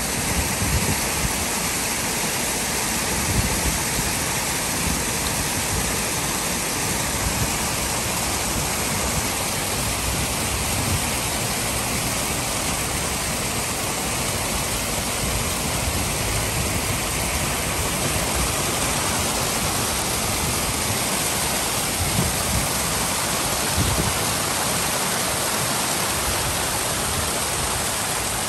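Water cascading in a sheet from the rim of a mushroom-shaped fountain and splashing into its tiled basin: a steady rushing splash.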